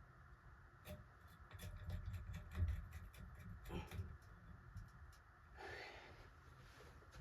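Small parts being handled in the hands: a run of light clicks and taps, with a brief rustle about six seconds in, as wires and the fan's switch housing are worked on.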